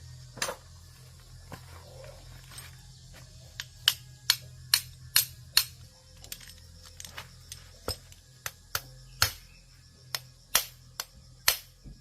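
Sharp metal clinks and taps of tools and parts being handled while working on an industrial crusher, irregular and densest about four to six seconds in, over a low steady hum.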